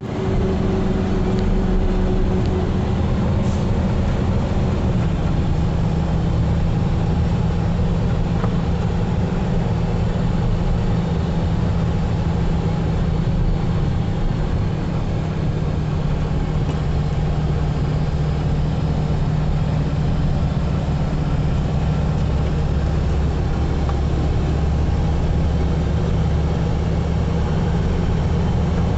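Steady vehicle engine and road noise, a low hum with a slight change in engine tone about five seconds in.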